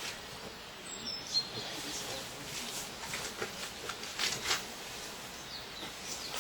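Outdoor background hiss with a brief high bird chirp about a second in and a few scattered short clicks.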